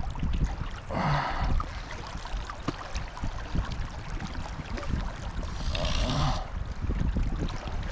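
Fast river water rushing steadily with a low rumble, and two brief louder whooshes, about a second in and around six seconds in.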